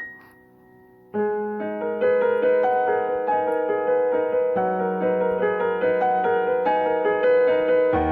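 Piano music: a slow melody of held notes that comes in about a second in over a faint sustained chord and grows louder.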